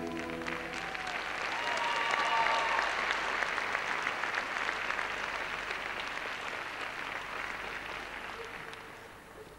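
Arena crowd applauding and cheering after a bugle solo, swelling about two seconds in and dying away toward the end. The solo's last held note cuts off at the very start.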